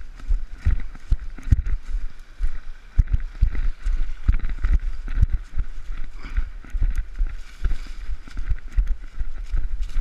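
Footsteps of a person walking fast through woodland undergrowth, heard as an irregular run of low thuds and knocks several times a second from a body-worn camera jolting with each stride.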